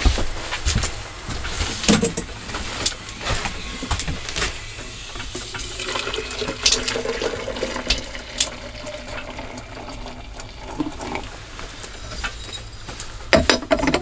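Steaming water poured from a metal kettle into an enamel coffee pot, the filling sound rising in pitch over several seconds as the pot fills. Sharp knocks and clinks of handling come before the pour and again near the end.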